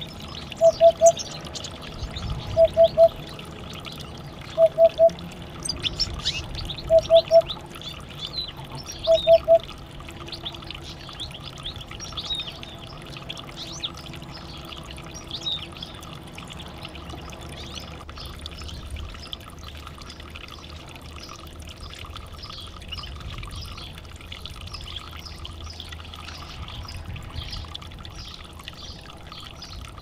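Domestic canaries chirping and twittering in short, high notes, busiest in the first half. Over the first ten seconds, the loudest sound is a set of three short, identical electronic-sounding tones repeating about every two seconds, then stopping.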